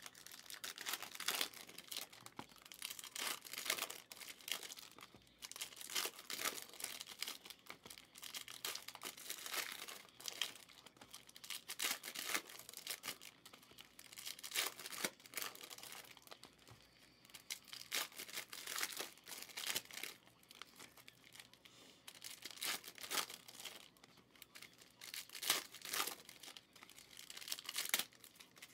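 Wrappers of 2023 Panini Prizm No Huddle football card packs being torn open and crinkled, with cards being handled, in irregular rustling bursts.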